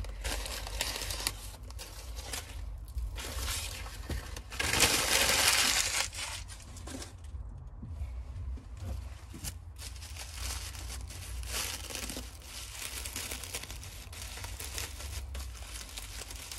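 Newspaper packing crinkling and tearing as it is pulled open by hand, loudest about five seconds in, then a thin plastic bag rustling as it is drawn off a small plant pot near the end.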